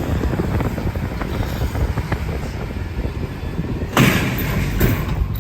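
Wind buffeting the microphone in a heavy rainstorm, a steady low rumble, with one sharp bang about four seconds in.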